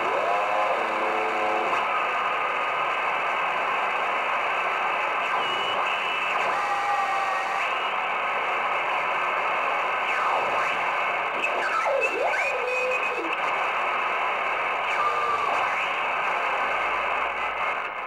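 Soviet R-250 military communications receiver tuned across the shortwave bands: a steady hiss of static with faint signals and thin whistles that slide up and down in pitch as the tuning knob is turned. The reception is weak because a plain length of wire serves as the antenna.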